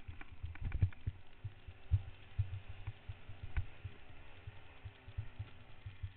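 Trail bike engine running faintly at low revs, under a string of irregular low thumps.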